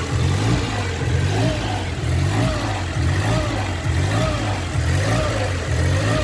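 Mercedes B170's 1.7-litre four-cylinder petrol engine idling unevenly, its revs rising and falling about once a second. The uneven idle is the sign of a damaged throttle body (butterfly valve).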